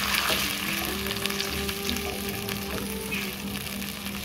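Tomato paste frying in hot oil in a wok, sizzling steadily as it is stirred with a wooden spatula.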